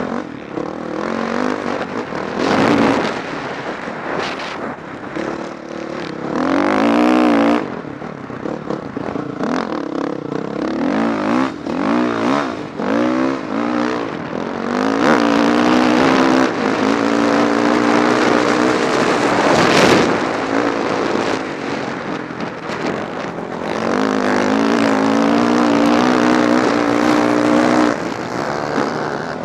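Dirt bike engine running under way, its pitch rising and falling with the throttle and held steady for a few seconds at a time, with wind rushing and buffeting over the helmet-mounted microphone.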